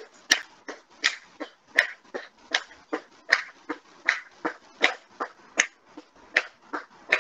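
A person doing jumping jacks: short, sharp rhythmic sounds, about three a second, picked up by a video-call microphone.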